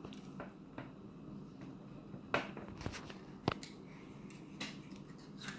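Plastic toy packaging being worked open by hand: a few scattered small clicks and crinkles over a quiet background, sharpest about two and a half and three and a half seconds in.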